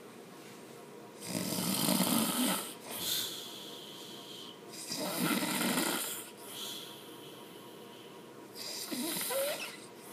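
Loud snoring: three rough snores roughly every three and a half to four seconds, the first two each followed by a faint high whistling breath.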